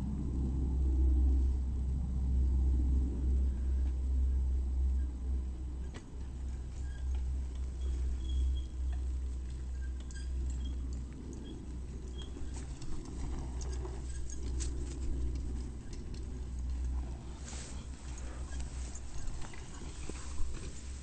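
Wind rumbling on the microphone, with scattered clicks and crunches near the end from mountain bikes rolling over the dirt track.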